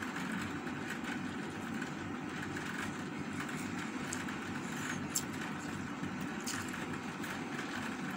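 Steady low background rumble, with a few faint clicks of hand-eating and chewing from about four seconds in.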